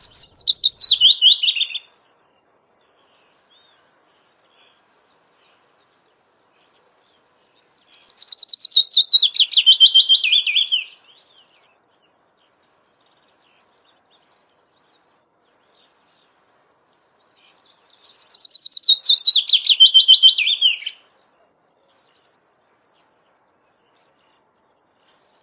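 A songbird singing the same rapid, descending song phrase three times, about ten seconds apart.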